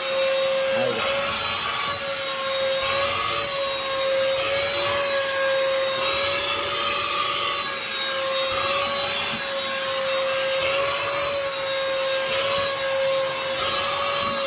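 Cordless handheld vacuum cleaner running steadily: a high motor whine that wavers slightly in pitch, over the rush of air through its nozzle.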